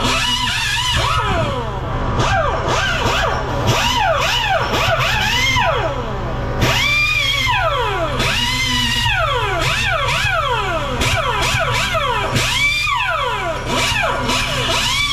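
Air-driven tyre buffer whining as it grinds the rubber inside the tyre around a puncture, preparing the spot for a patch. Its pitch rises and falls over and over, about once a second, over a steady low hum.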